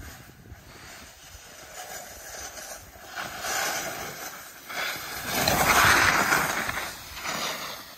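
Snowboard edges scraping and hissing over packed snow during turns down a slope. The scraping swells twice and is loudest about five to six and a half seconds in.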